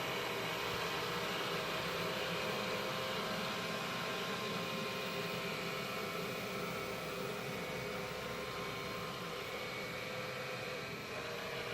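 Xiaomi robot vacuum running steadily with a whine of several tones over its motor noise as it drives back to its charging dock.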